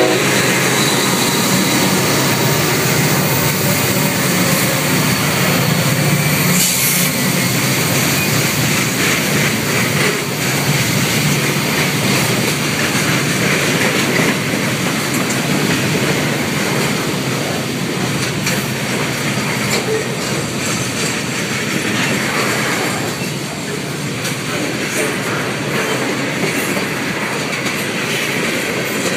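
A freight train's cars, boxcars and then tank cars, rolling past at close range, their wheels clattering steadily over the rails.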